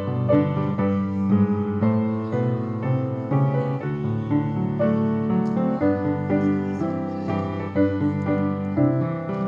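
Piano playing a piece of church music, chords and melody moving steadily from note to note.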